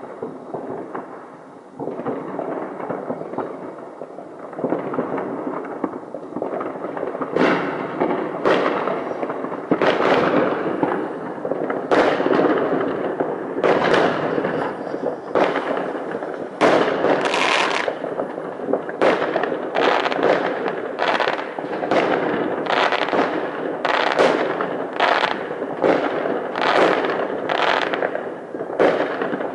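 Fireworks display: a long, irregular run of sharp aerial bangs over continuous crackling, sparse at first and coming thick and fast, about one to two a second, from about seven seconds in.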